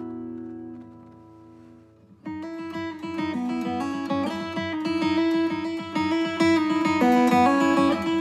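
Background acoustic guitar music: a held chord fades away over the first two seconds, then a new passage of quickly picked notes begins.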